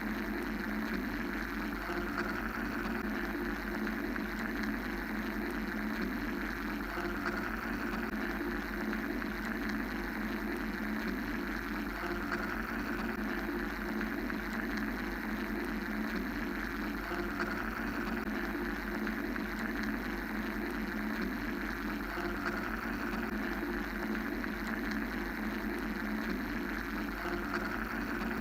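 Steady mechanical white noise, a continuous even hum with a deep low rumble beneath, its upper hiss swelling and easing slowly about every five to six seconds.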